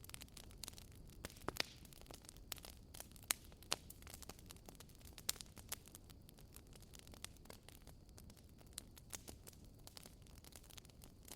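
Wood fire crackling in a fireplace: irregular sharp pops and snaps, a few of them louder, over a soft low rumble of the burning.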